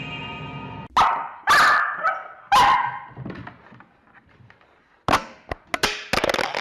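A dog barking, three loud barks in the first few seconds, followed by a few sharp knocks near the end.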